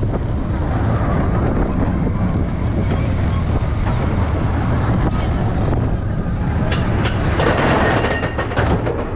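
Roller coaster train rolling along its steel track, its wheels rumbling and rattling steadily. Near the end a louder, harsher rushing noise rises for about a second.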